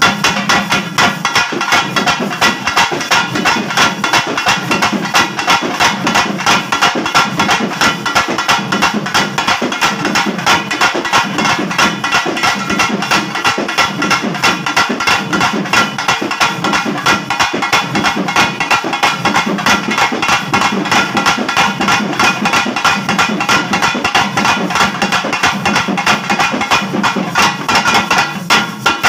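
Pambai drums, a pair of wooden and brass cylindrical drums, beaten fast with sticks in a dense, driving, unbroken rhythm.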